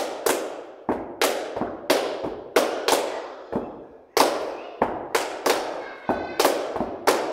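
Two people clapping a steady rhythm, about two to three claps a second, with some heavier thuds among them, each echoing in a hard-walled hallway.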